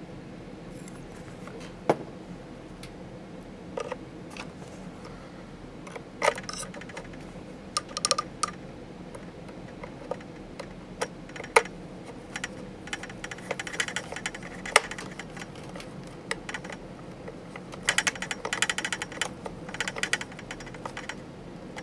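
Light clicks and taps of a small screw and hand tools against the metal hull and steel gearbox of an RC tank, with stretches of quick ticking about two-thirds through and near the end as a screwdriver turns a mounting screw in.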